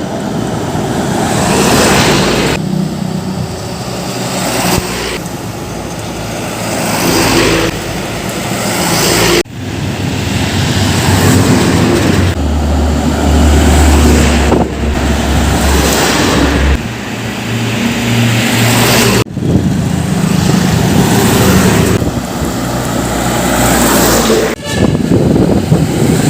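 Heavy diesel dump trucks driving past on a road, engines running under load. The sound is a string of short takes that cut abruptly several times, and a deep steady engine note stands out for a few seconds around the middle.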